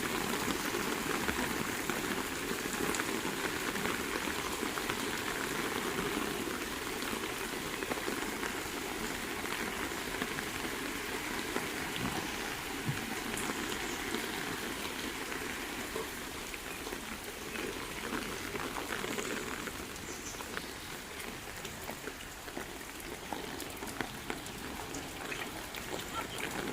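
Heavy rain falling steadily, a dense patter of drops on surfaces, growing a little quieter toward the end.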